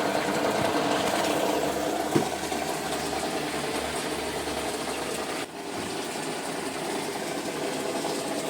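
Samsung Activ Dual Wash washing machine running a wash-rinse-spin test cycle after the failed IC on its inlet-valve control board was replaced: a steady mechanical hum, with a sharp click about two seconds in.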